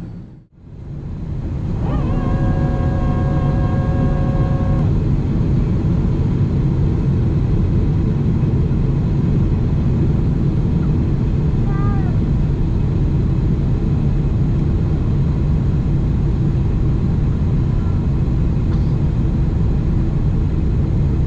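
Steady cabin roar of a Boeing 777-300ER in flight, heard from a window seat over the wing: the GE90 engine and the rush of air. The roar fades out and back in briefly near the start. Two to five seconds in there is a faint steady tone.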